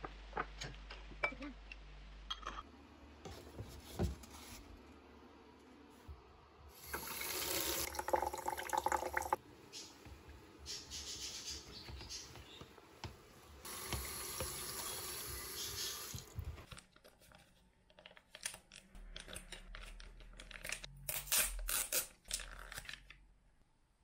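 Tap water running into a basin where silk pillowcases are being hand-washed, in two spells of a few seconds each. Small handling clicks come before it, and a run of sharp clicks and rustles comes near the end.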